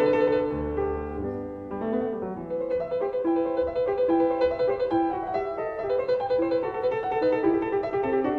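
Background piano music, a gentle classical-style piece with many notes played one after another.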